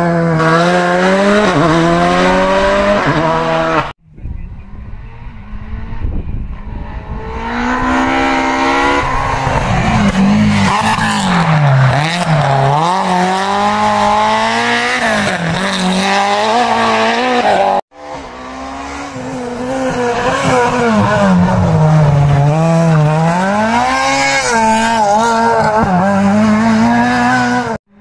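Three rally cars driven hard on a twisting tarmac stage, first a Volkswagen Polo and then a BMW Compact, cut one after another. Each engine revs up and drops back again and again through gear changes. The sound breaks off abruptly at each cut, about 4 and 18 seconds in, and the second car starts faint and swells as it approaches.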